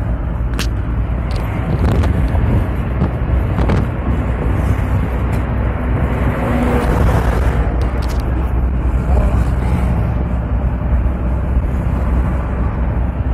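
Engine and road noise of a Mahindra Bolero Maxi Truck Plus pickup cruising on a highway, heard inside the cab as a steady low rumble. A few brief clicks or rattles stand out, one in the first second and a few more over the next several seconds.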